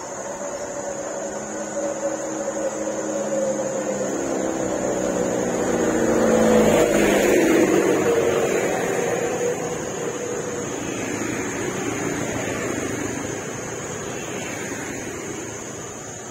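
Motor scooter passing close on a road: its engine grows louder, peaks about seven seconds in and drops in pitch as it goes by, then fades. Other motorbikes follow behind it.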